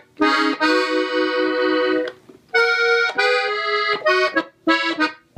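Gabbanelli button accordion tuned in E, played slowly: held chords and melody notes in a few short phrases, broken by brief pauses about two seconds in and again near the end.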